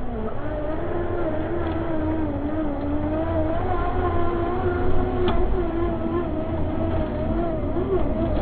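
Electric motor and gearbox of a radio-controlled tow truck whining as it climbs a dirt slope under load, the pitch wavering with the throttle, over a low rumble of the chassis and trailer. A single sharp click comes about five seconds in.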